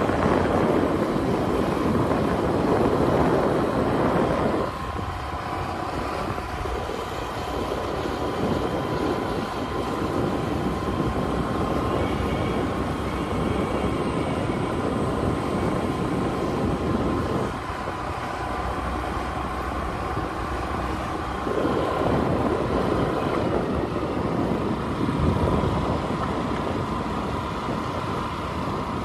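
Scooter engine running on the move, with wind and road noise and a steady thin whine. The sound drops back about five seconds in and again past the middle, picking up a few seconds later.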